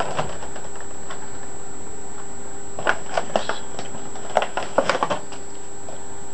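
Short clicks and rattles of an action figure's packaging and parts being handled, in two brief clusters about three and five seconds in, over a steady hiss.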